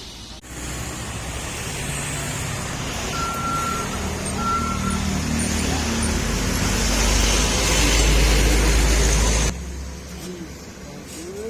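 Motor vehicle noise that builds to a loud low rumble, with two short beeps about three and four and a half seconds in, then cuts off suddenly.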